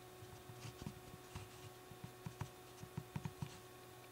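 Faint, irregular small clicks and taps of handling noise as the camera is held and shifted against the eyepiece of an MBS-10 stereo microscope, over a faint steady hum.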